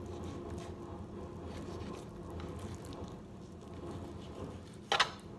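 Small knife cutting raw pork shoulder butt away from the bone, with soft wet squishing as the meat is pulled and handled, over a steady low hum. A single sharp knock about five seconds in is the loudest sound.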